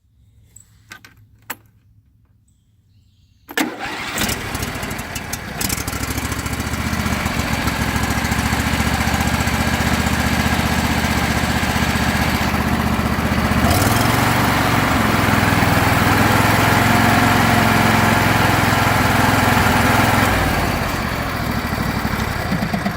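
A small lawnmower engine starts after a few knocks. It catches suddenly about three and a half seconds in and runs steadily, speeds up around the middle, and settles back lower near the end. It is running properly again now that a sheared flywheel key, which had thrown the ignition timing off, has been replaced.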